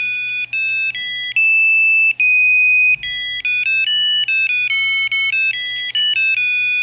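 Small piezo buzzer driven by an Arduino board playing a quick electronic melody of beeping notes. The pitch changes several times a second, with a couple of longer held notes between 1.5 and 3 s.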